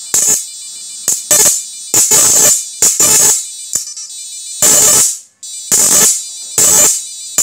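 Electric arc from a homemade 7000 W IGBT electric fishing machine, buzzing and crackling in irregular bursts as its output lead is struck against a metal bar. Some bursts are brief and others last about half a second.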